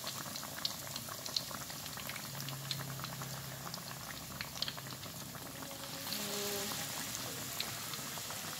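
Battered banana pieces deep-frying in hot oil in a wok: a steady sizzle with many small crackles and pops. The sizzle gets louder about six seconds in, as another battered piece goes into the oil.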